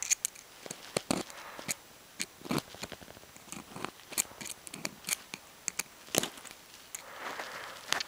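A small metal blade and a metal connector being worked by hand on the end of a quad-shield coax cable: a string of sharp, irregular clicks and scrapes as the cable end is cut and fitted.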